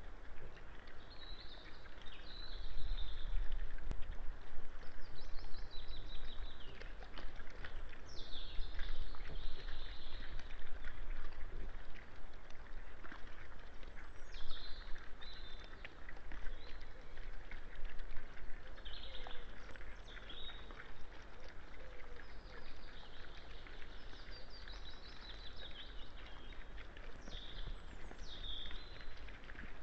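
Songbirds singing in short, high phrases every second or two over a steady low outdoor rumble, with scattered faint clicks.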